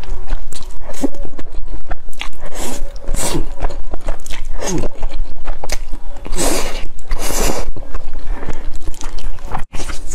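Close-miked slurping and chewing of thick noodles in black bean sauce: wet lip smacks and mouth clicks, with two long loud slurps about six and seven seconds in.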